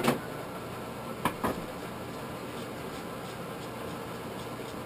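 Steady hum of a blacksmith's forge with its air blower running. There is a sharp knock near the start and two more in quick succession about a second later, tools knocking at the forge.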